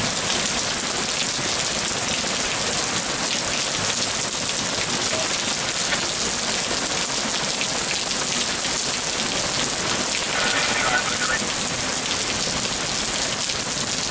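Heavy rain falling steadily in a thunderstorm, an even downpour with no thunder.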